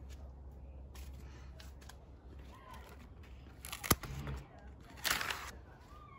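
Garden scissors cutting bottle gourd (opo) vines: a sharp snip a little under four seconds in, with brief rustles of leaves and vines around it, one about five seconds in.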